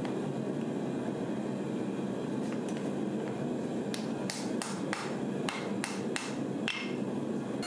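Hand hammer tapping a white-hot billet on a steel anvil: light forge-welding blows to set the tack-welded spring pieces before pressing. A couple of faint taps come first, then a quicker run of about eight strikes in the second half, over a steady rushing noise.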